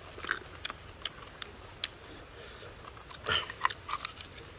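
Insects droning steadily at a high pitch, with scattered sharp clicks and taps from handling food and a knife.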